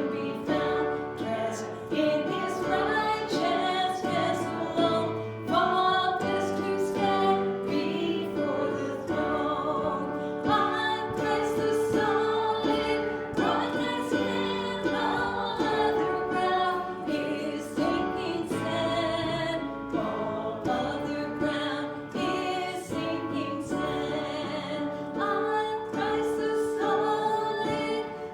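Congregational hymn singing: a group of voices singing together with instruments, steady and continuous.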